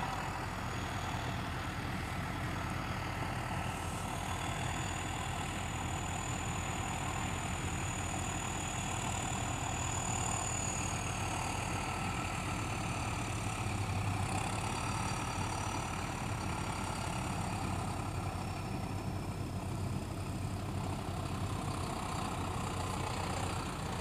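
Farm tractor's diesel engine running steadily at low speed, with a faint high whine over it.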